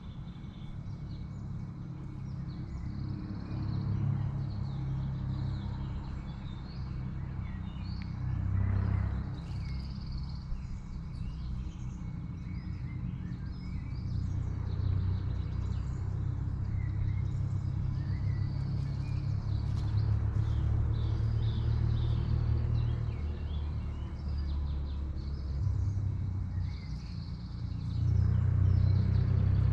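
Small woodland birds chirping in short calls scattered throughout, over a steady low rumble that is the loudest sound and grows louder near the end.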